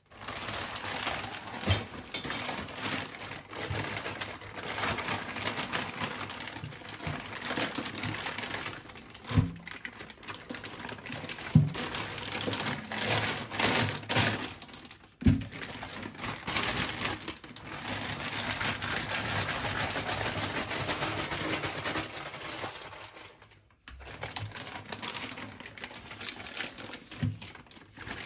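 Knife working on a large snapper: continuous scraping and cutting with scattered clicks, and a few sharp knocks on the board about a third and halfway through.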